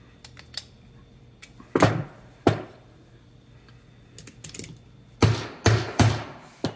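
Sharp hammer taps on a steel handbrake lever laid on a wooden block while a brake pad is fitted onto the lever: about six knocks with light clicks between them, and three close together near the end.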